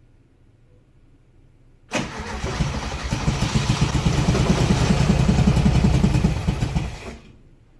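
1971 VW Beetle's air-cooled flat-four cranking on the starter for about five seconds, with a fast, even churning rhythm, and never catching. This is a failed start despite a new fuel pump and filter, put down to a fuel delivery problem.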